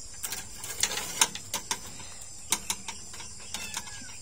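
A run of irregular sharp clicks and crackles, loudest about a second in, over a steady chirping of crickets.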